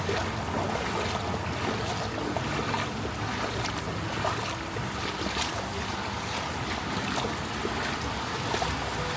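Floodwater sloshing and splashing in a flooded street, with many small splashes over a steady low rumble.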